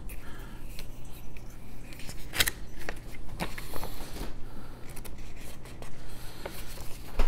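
Handling of a small paper booklet and a cardboard card-game box: pages rustling and turning, with scattered short clicks and taps, the sharpest about two and a half seconds in and another near the end.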